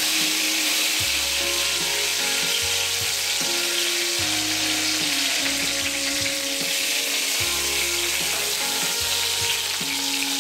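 Curry leaves and dry red chilies sizzling steadily in hot oil during tempering, a dense even frying hiss. Low background music notes sit under it.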